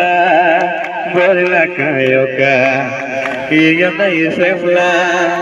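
A man singing a wavering, held melody into a handheld microphone, amplified through a portable party speaker, with people clapping along.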